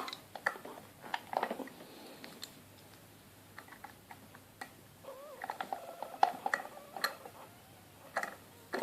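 Scattered light metallic clicks and taps of a tension wrench and hook pick being set into and worked in the keyway of a Master Lock Pro Series padlock.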